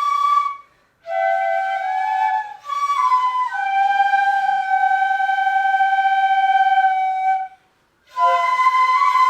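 Shinobue, Japanese bamboo transverse flutes, playing a slow melody in short phrases with brief breath pauses between them, including one long held note of about four seconds; at times two flute lines sound together a little apart in pitch.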